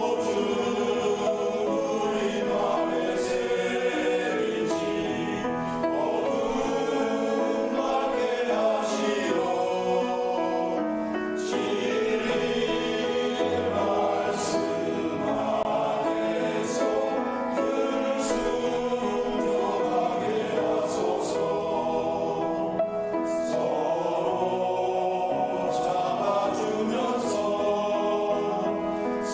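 A church choir singing a hymn in Korean, many voices holding chords in harmony without a break.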